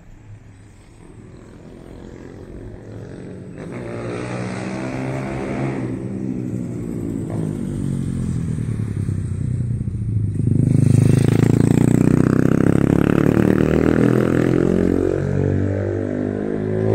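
A car engine running close by, growing louder over the first ten seconds and then loud and uneven, its pitch rising and falling as it revs.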